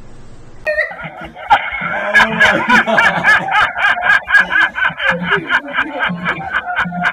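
A man laughing in rapid, high-pitched cackles, several a second, starting about a second in: a laughing-meme sound effect added to the clip.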